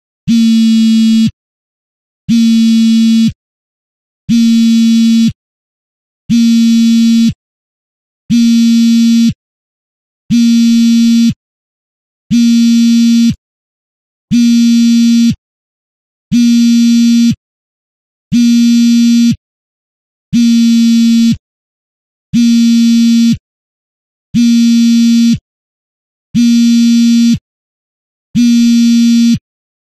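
Mobile phone vibrating on fabric, as for an incoming call: a buzz lasting just over a second, repeating about every two seconds, some fifteen times.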